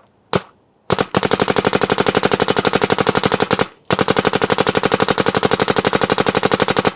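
Shocker XLS paintball marker fitted with a Field One Acculock barrel firing: one single shot, then two long rapid-fire strings with a brief break between them. The sound of this barrel was metered at a peak of about 88 to 90 dB.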